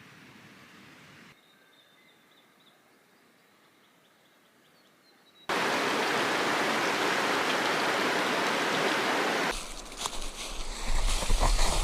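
Outdoor sound cut together in short clips: a quiet stretch with a faint thin high tone, then a loud steady rush of river water starting suddenly about five seconds in, then uneven low rumbling with knocks near the end.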